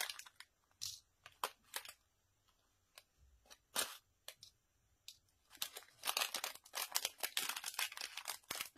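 Small plastic bag crinkling as gold sequins are shaken out of it, with light scattered clicks. The crinkling is sparse at first and turns dense and almost continuous over the last three seconds as the packaging is handled.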